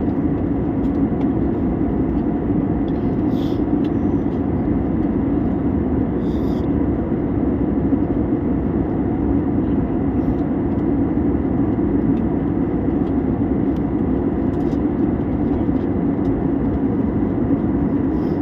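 Steady low roar of an aeroplane's engines, an even rushing noise that holds the same level throughout without rising or falling.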